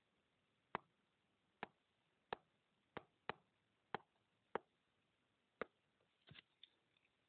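Faint, sharp taps of a stylus on a tablet screen as words are handwritten, about one every half second to second, one as each stroke begins. A quick flurry of lighter taps comes near the end.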